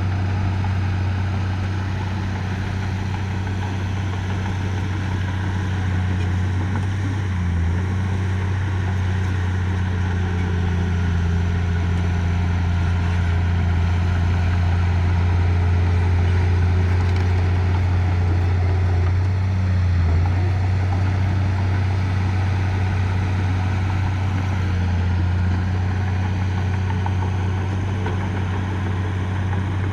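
Heavy earthmoving machine's diesel engine running steadily at an even pitch, with two brief dips, about seven and twenty seconds in.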